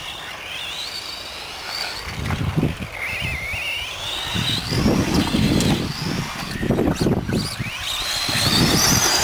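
Radio-controlled buggies' electric motors racing: a high-pitched whine that rises and falls with the throttle and climbs steeply near the end, over irregular low rumbles.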